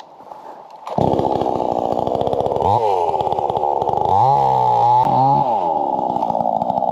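Gas chainsaw running at full throttle from about a second in, its engine pitch dropping twice under load as the chain cuts into a log, then rising again: bucking logs to length.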